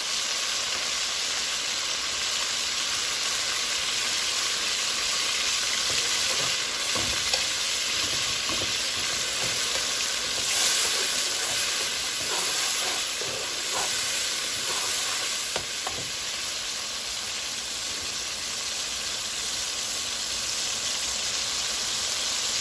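Browned onions sizzling and frying in oil in a metal pan, a steady hiss. A few scrapes and taps from a slotted metal spatula stirring the pan come through in the middle stretch.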